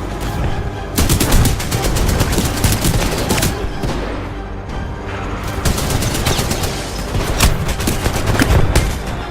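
Rapid automatic gunfire over music: a fast string of shots starts about a second in, eases off around the middle, then comes back for the second half.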